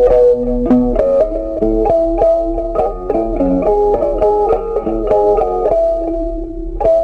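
Background music: a guitar picking out a melody note by note.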